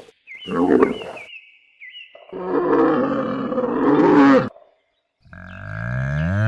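Camel calling: two short grunting calls, then a long, rough, growling roar, and a rising groan that begins near the end.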